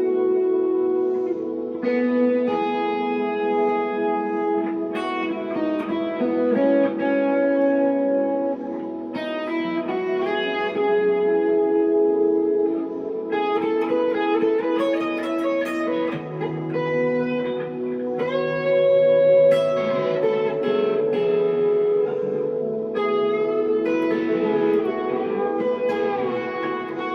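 1963 Fender Telecaster electric guitar played through a Glaswerks Zingaro 100-watt amp: a slow improvised passage of sustained chords and single notes, with several string bends.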